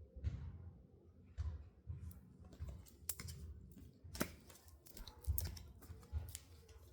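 Tarot cards being handled and shuffled: a run of sharp clicks and snaps, with a few soft low thumps.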